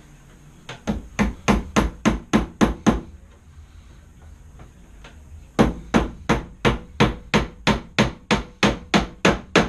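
Hammer driving a nail into the wood of an old dresser: a run of about nine quick blows, a pause of about two and a half seconds, then a longer run of blows at about three a second.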